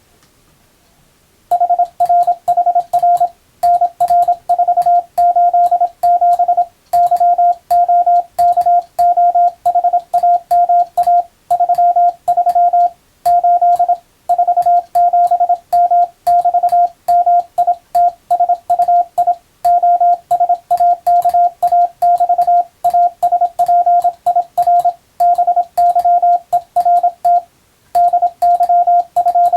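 Morse code for receiving practice: a single-pitch tone keyed on and off in quick dots and dashes, with short gaps between characters and words. It starts about a second and a half in, and each element begins and ends with a faint click.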